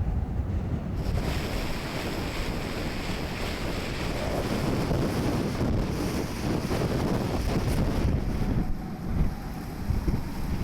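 Storm-force wind buffeting the microphone over the rush of a rough sea.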